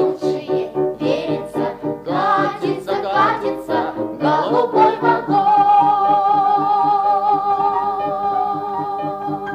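Singing with instrumental accompaniment, the final phrase ending about five seconds in on a long held note with vibrato.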